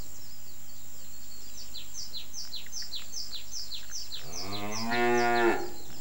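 A cow mooing once, about a second and a half long, starting about four seconds in. Before it comes a steady run of short, high, falling chirps, about three a second.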